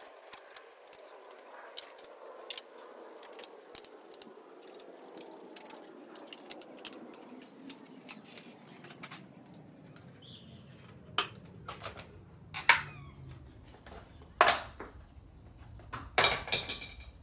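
Sharp plastic clicks and rattles from a motorcycle's headlight cowl being prised off its clips, loudest in a few snaps in the second half. Behind them a faint rushing hum slowly falls in pitch.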